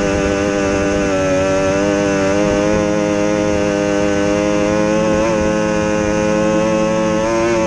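Outboard engine of an SST 60 tunnel-hull race boat running at a steady high pitch at racing speed, its note wavering only slightly, over the rush of wind and water.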